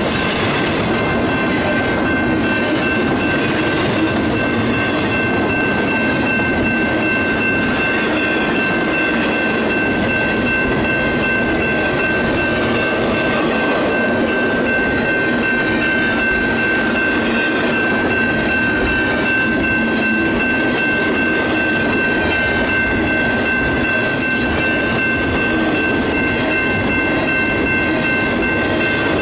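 Double-stack intermodal container train cars rolling past at close range, a steady noise of steel wheels on rail, with steady high-pitched tones running throughout.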